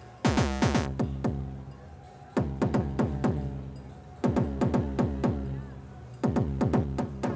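Noise Engineering Basimilus Iteritas Alter Eurorack drum module playing synthesized kick drums in its new pitch-envelope mode, with a lot more punch. A repeating pattern of short runs of four or five hits, one run about every two seconds, each hit sweeping sharply down in pitch.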